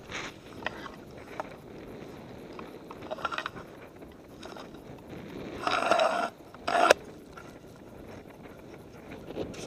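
Handling noise on a pole-mounted action camera: scattered clicks and rustling as it rubs against a nylon ski jacket, with two louder bursts about six and seven seconds in.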